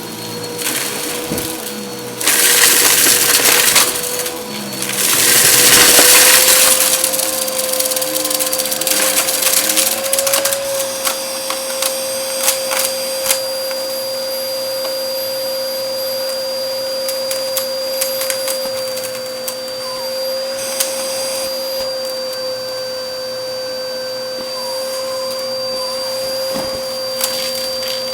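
Bissell vacuum cleaner running over a shag rug with a steady motor hum and high whine. Two louder rushes of noise come in the first seven seconds, then it runs steadily with scattered crackles as debris is picked up.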